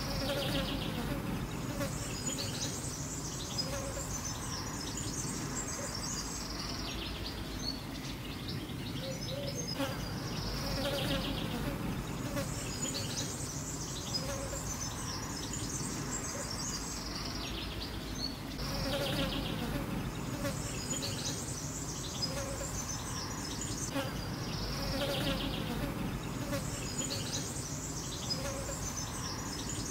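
Flying insects buzzing steadily, with the buzz swelling and fading now and then.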